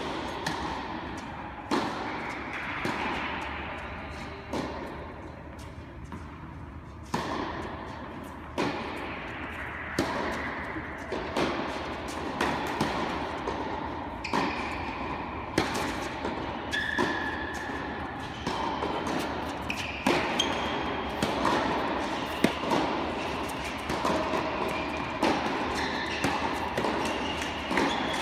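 Tennis balls struck by rackets and bouncing on an indoor hard court during rallies. Each sharp pop echoes through the large hall, and they come about every second or so.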